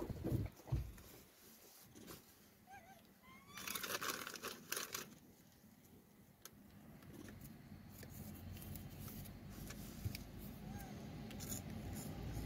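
A short rustling, crinkling burst about four seconds in, then the low hum of a road vehicle growing steadily louder as it approaches.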